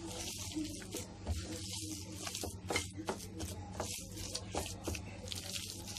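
A hand squishing and mashing a wet shami kebab mixture of ground meat, cooked chana dal and raw egg in a glass bowl: irregular soft wet squelches and crackles, with a low steady hum underneath.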